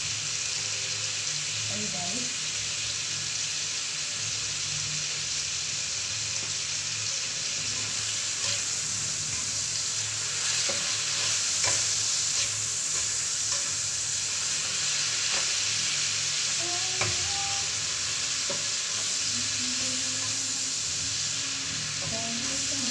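Food frying in oil in a wok over a gas flame, a steady sizzle. From about a third of the way in, a silicone spatula stirs the pan in short, uneven strokes.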